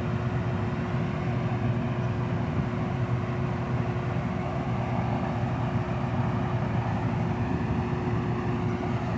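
Steady idling hum of a parked diesel-electric rail grinder: an even low rumble with one constant tone held above it.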